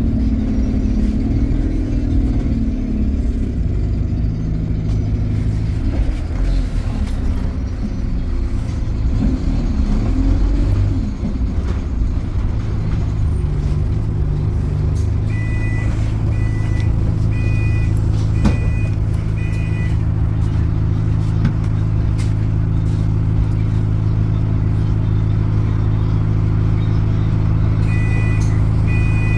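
Alexander Dennis Enviro200 single-deck bus slowing to a stop, its diesel engine dropping in pitch and then idling with a steady hum. The bus's door chime beeps about five times in a regular pattern partway through, and starts again near the end.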